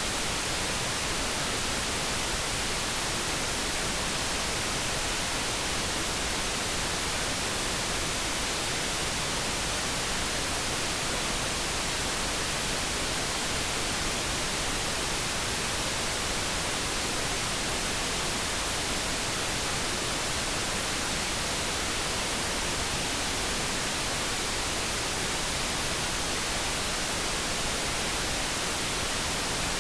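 Steady synthetic noise: an even, unbroken hiss with no pitched tones and no changes.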